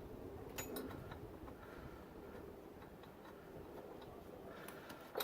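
Faint, scattered light clicks of hand tools and small bolts being handled while a small bolt is fitted on the engine, the sharpest click right at the end.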